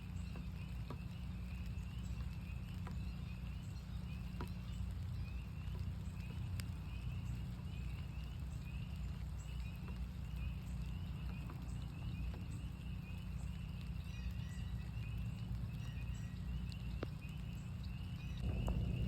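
A chorus of northern spring peepers: many short, high peeps repeating and overlapping without a break, over a steady low rumble and scattered drips of rain. A louder rush of noise swells in near the end.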